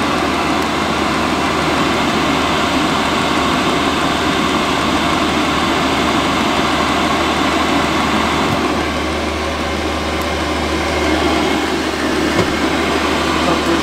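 5 kW Chinese diesel air parking heater running: a steady whoosh from its blower fan and burner over a low hum, which swells slightly for a couple of seconds past the middle.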